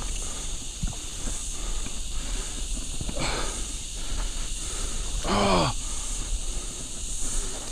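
A hooked bass thrashing and splashing at the creek surface, with a short splash about three seconds in. A steady high hiss runs underneath, and a brief pitched sound that bends down in pitch comes about five seconds in.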